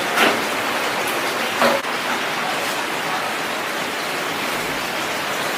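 Steady rushing noise of factory machinery, with two short sounds in the first two seconds.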